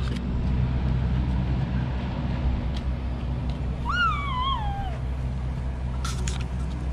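Steady low mechanical hum, with one short, high cry about four seconds in that wavers and then falls in pitch, like a meow or a small child's squeal.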